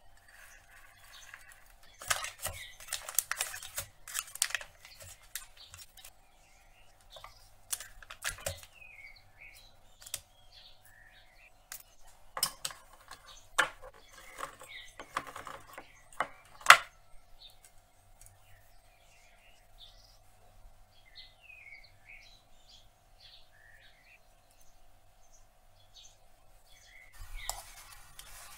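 Chopped nuts clattering as they are poured from a plastic cutting board into a ceramic mug, then a hand-held can opener clicking and crunching as it is turned around a metal can lid. Birds chirp in the background between the clicks.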